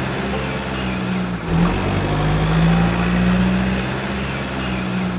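A steady engine-like hum with a low, even pitch, briefly dropping out about one and a half seconds in.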